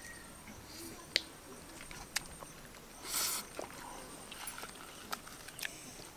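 Quiet sounds of people eating rice and curry by hand from steel plates: scattered sharp clicks and small smacks, with a short burst of rustling noise about three seconds in.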